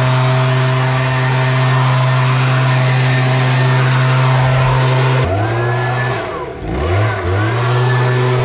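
Stihl handheld two-stroke gas leaf blower running steadily at high throttle. About five seconds in, the engine drops back and is revved up and down several times.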